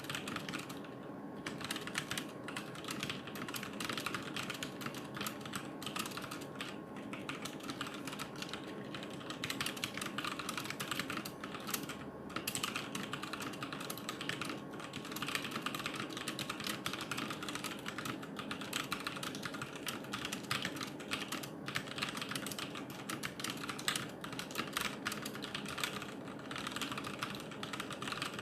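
Typing on a HyperX Alloy FPS RGB mechanical keyboard with Kailh Silver Speed linear switches: rapid, continuous keystrokes clacking, with brief pauses about a second in and again around twelve seconds in.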